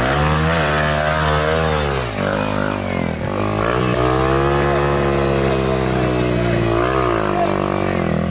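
Off-road trail motorcycle engine revving under throttle, its pitch rising and falling as the rider opens and eases the throttle. The pitch dips about two seconds in and again near seven seconds before climbing again.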